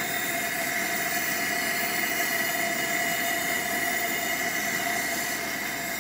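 Coleman two-burner camp stove burner running under an enamel percolator, heating water: a steady, even rushing hiss with a thin constant whine in it.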